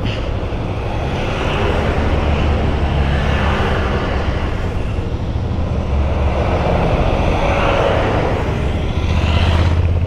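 Motorcycle engine running steadily under way, with a rushing noise that swells about a second and a half in and again near the end.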